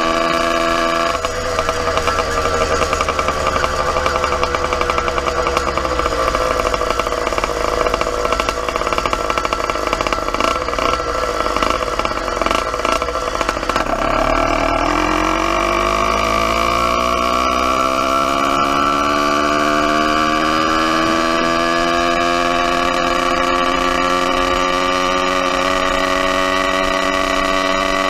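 YD100 motorized bicycle engine running while riding: its revs fall steadily through the first half, then climb again through the second half as it accelerates.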